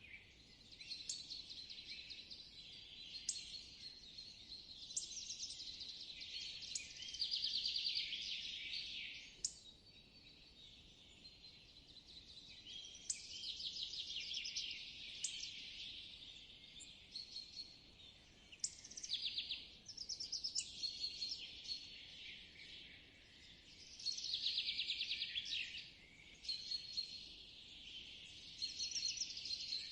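Spring forest ambience of wild birds singing: short chirped phrases and fast rapid-note trills from several birds, swelling and fading every few seconds, over a faint steady background hush.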